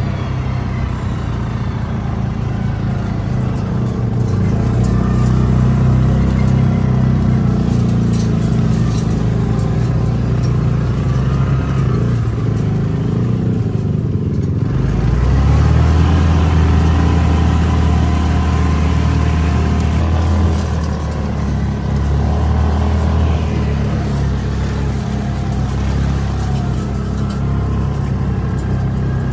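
A motor vehicle's engine running steadily as it drives, its note shifting lower about halfway through.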